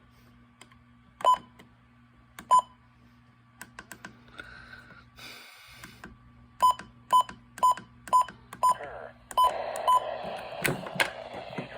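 Short electronic beeps near 1 kHz from a radio receiver's keypad: two single beeps, a brief burst of static, then seven quick beeps about two a second.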